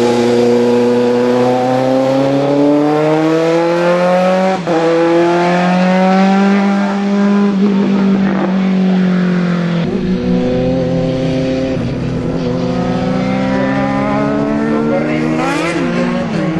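Racing car engine at full throttle, its pitch climbing steadily and dropping back a few times, as a car accelerates hard through the gears.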